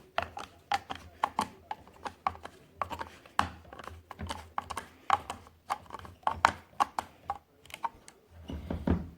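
Irregular light clicks and taps of small metal and wooden parts being handled and fitted during reassembly of a Hatsan 125 break-barrel air rifle.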